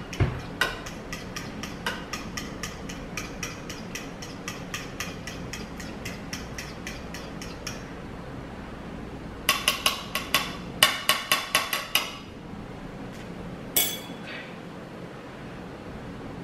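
A fork beating eggs in a ceramic bowl, clinking against the bowl in a steady rhythm of about four to five strokes a second. About halfway through come faster, louder runs of clinks, and one last clink a little later.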